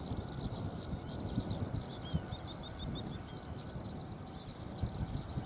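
Many small birds chirping and twittering, with a quick run of about six identical chirps a little over two seconds in, over a low, uneven rumble.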